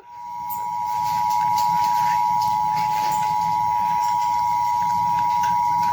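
Emergency Alert System attention signal: a steady two-tone beep that swells in over about the first second and then holds, over a low background hum. It signals the start of a Civil Danger Warning.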